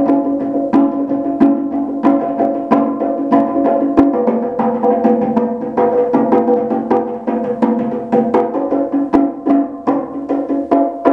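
Pair of bongo drums played by hand in a fast, improvised rhythm: a dense run of sharp strokes, the drumheads ringing on between them.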